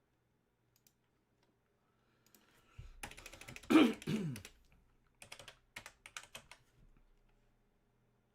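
A short vocal noise from a person about three seconds in, then a quick run of about eight clicks of computer keys over a second and a half.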